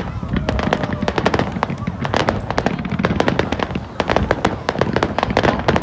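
Aerial fireworks bursting in a rapid, irregular run of sharp bangs and crackles, growing denser after about two seconds.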